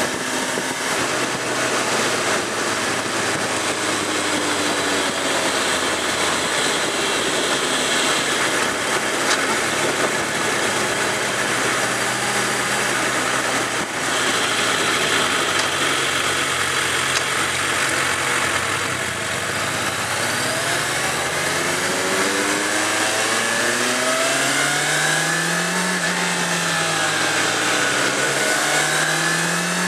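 Suzuki GSX650F's inline-four engine heard from the rider's seat under heavy wind rush, running at a steady cruise and then, for the last ten seconds or so, accelerating: the engine note climbs, eases off briefly, and climbs again.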